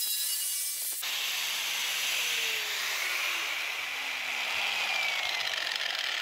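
Angle grinder with a flap disc running against the edges of a particleboard box: a continuous hissing grind. The sound changes abruptly about a second in, then the motor's tone slowly falls in pitch over the next few seconds.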